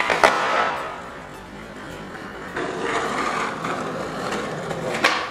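Skateboard landing a kickflip on asphalt: two sharp clacks as the wheels and deck hit the ground, then the hard wheels rolling over the rough driveway. Another sharp clack of the board comes near the end.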